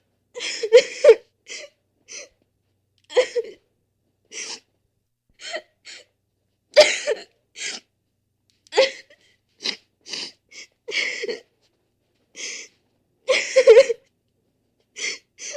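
A person crying: short sobbing gasps, sniffs and whimpers in many separate bursts with dead silence between them. The loudest bursts come about a second in, near the middle and near the end.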